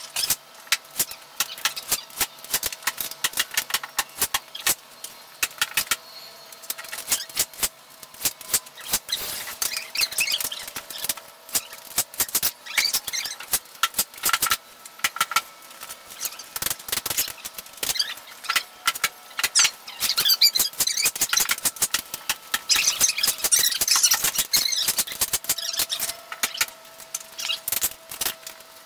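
Irregular clicks, knocks and scraping of hand work on a wooden screen door frame as 1x2 wooden battens are pried and pulled off, with longer stretches of scraping partway through.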